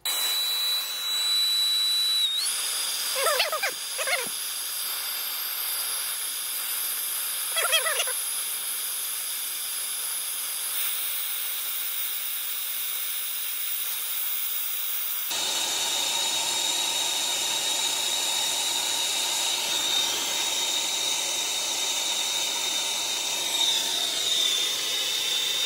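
Brazing torch flame hissing steadily with a thin high whistle while a copper joint on the TXV is brazed. There are brief warbling squeaks about three and eight seconds in, and the hiss turns fuller and deeper about fifteen seconds in.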